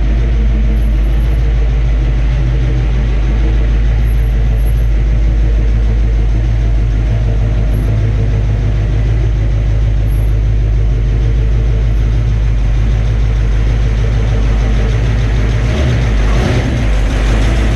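Ford 351 Cleveland V8 engine running steadily, freshly fitted with new spark plugs after the old ones had fouled.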